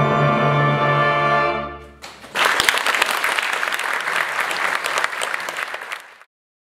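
An orchestra holds a final chord that dies away about two seconds in. The audience then applauds until the sound cuts off abruptly.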